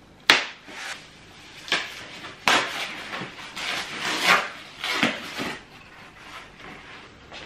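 Handling noise from unpacking a stroller frame: a sharp plastic click about a third of a second in, then more clicks and rustling as black protective packaging pieces are pulled off the frame and handlebar.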